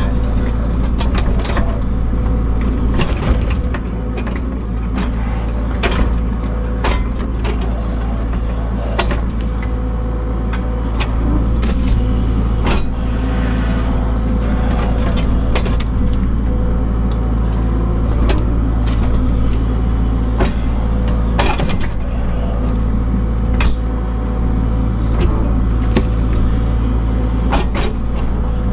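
A machine's engine running steadily, with irregular knocks, clacks and cracks over it.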